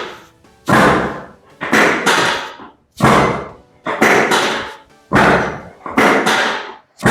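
A series of loud, sharp thumps, seven of them about one a second, each trailing off over about half a second.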